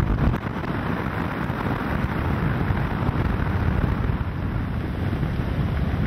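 Strong wind buffeting the microphone, over the rush of heavy seas breaking along a sailing ship's hull.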